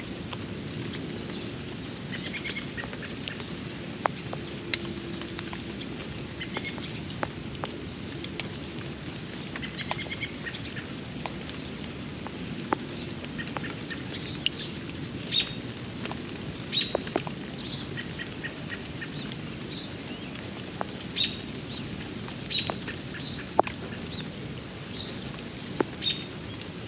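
Steady rain falling, with sharp drips and taps of drops striking nearby surfaces. Birds give short chirps every couple of seconds, more often in the second half.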